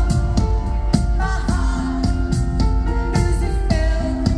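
Live pop performance: a woman singing lead into a microphone over a full band with regular drum beats.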